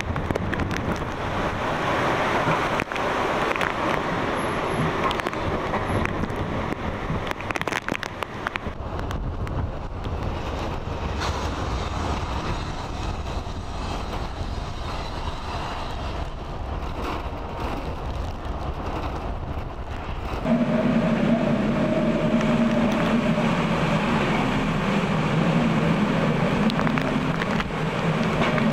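Hurricane wind and rain noise, gusting on the microphone. About twenty seconds in it gives way to a steady machine hum with a low tone and a higher one above it.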